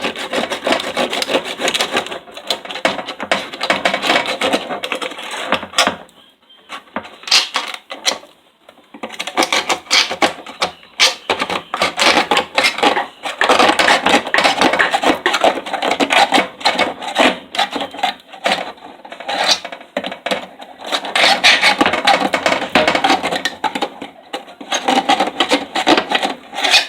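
Kitchen knife blade sawing back and forth through a tin can's metal lid, a loud rasping scrape of steel on tinplate. It stops briefly about six seconds in, then carries on.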